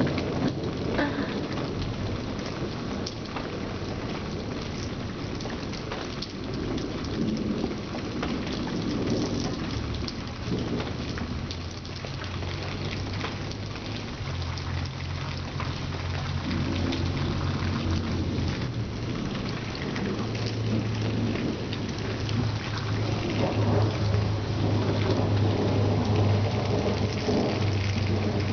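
Rain falling steadily in a thunderstorm, with many small drop ticks, and low thunder rumbling from about ten seconds in.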